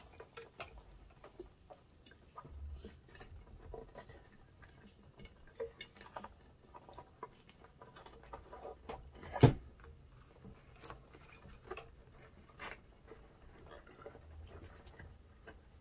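Hands working a rubber inner tube into an electric unicycle tyre: scattered small rubbing, scratching and light clicking sounds, with one sharp knock about nine and a half seconds in.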